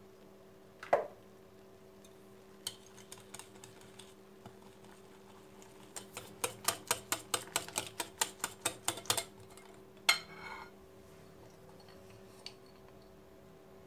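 Stainless wire whisk beating crêpe batter in a glass bowl: the wires click against the glass in a quick even run of about six strokes a second for some three seconds. A few scattered taps come before it, and a sharp clink with a short ring follows.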